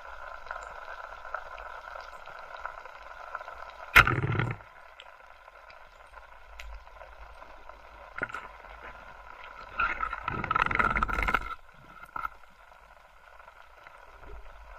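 Underwater: a rubber-band speargun fires about four seconds in, a sharp crack followed by a short rumble as the spear hits the fish. Later comes a rough, noisy burst lasting about a second and a half, over a steady hiss with scattered faint clicks.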